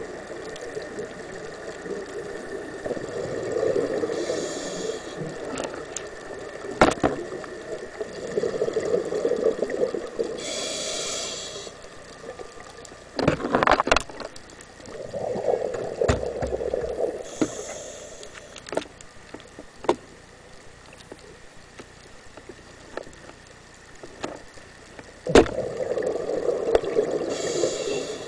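Scuba diver breathing through a regulator underwater: a bubbling rush of exhaled air, then a short hiss of inhaled air, four times at about six to seven second intervals. A few sharp knocks cut in, the loudest about three-quarters of the way through.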